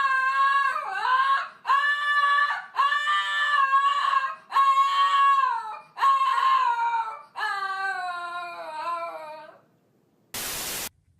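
A cat yowling: a run of about six long, drawn-out wails with brief breaks between them, the last one sliding down in pitch. A short burst of hiss follows near the end.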